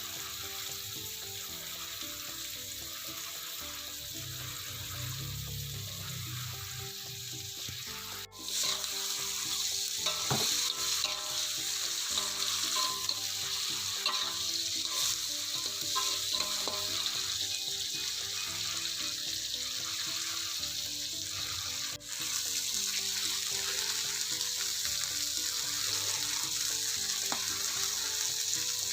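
A stir-fry sizzling in a hot pan as it is stirred; the sizzle gets louder about eight seconds in, after a brief dip.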